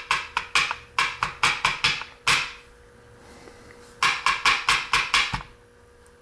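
Quick runs of light metallic taps, about five a second, as a mortise lock cylinder is tapped and worked to free its pins. A run of about two and a half seconds, a pause of about a second and a half, then a shorter run.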